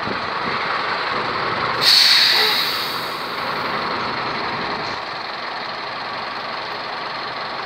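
International cabover dump truck running steadily with its bed raised for dumping. About two seconds in, a loud hiss of released compressed air from the truck's air system bursts out and fades away over a couple of seconds.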